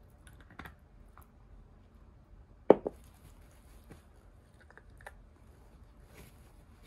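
Italian greyhound gnawing a deer antler chew: scattered small clicks and crunches of teeth on antler, with one sharp double knock a little under three seconds in.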